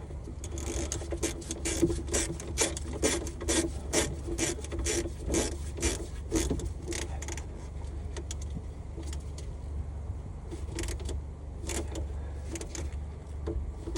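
Ratchet wrench tightening the negative battery terminal clamp: rasping back-and-forth strokes about twice a second, thinning to a few single strokes in the second half, over a steady low hum.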